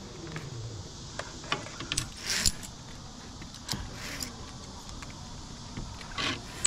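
Metal zip line hardware (clips and trolley gear) clinking and jingling in a few short bursts with sharp clicks, the loudest about two and a half seconds in.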